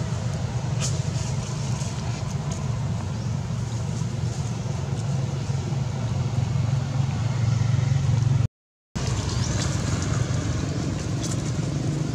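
Steady low engine drone of a nearby idling motor. It cuts out completely for about half a second some eight and a half seconds in, with a few faint clicks.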